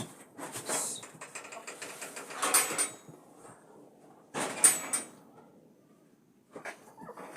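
Four short bouts of scraping and knocking as something is handled and set down, the loudest about halfway through.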